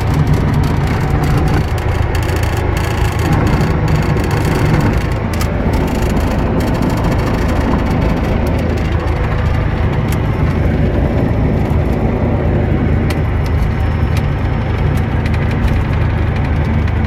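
Cessna 172's piston engine and propeller running with a steady, loud drone, heard from on board the aircraft.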